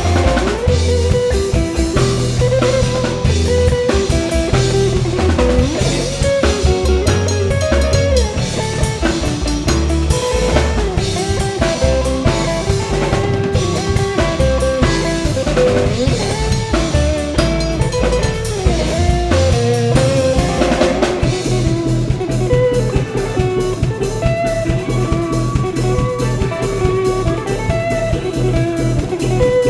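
Live instrumental rock jam from a soundboard mix: electric guitar, bass, drums and keyboards playing together with no singing. The guitar plays a line of bent notes over a busy drum beat and bass, and the groove changes about two-thirds of the way through.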